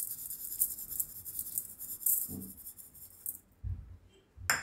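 Granulated sugar pouring onto chopped raw mango in a stainless steel bowl, a fine rattling patter that stops about three seconds in. A dull thump and a short knock follow near the end.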